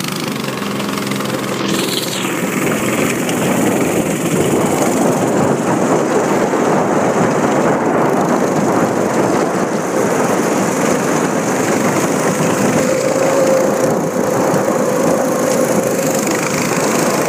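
Small single-cylinder engine of a 200cc drift kart running under throttle, a dense, steady, rough drone.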